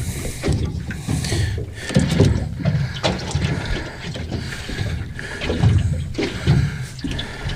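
Water sloshing and splashing, with scattered knocks and handling noise in a small fishing boat.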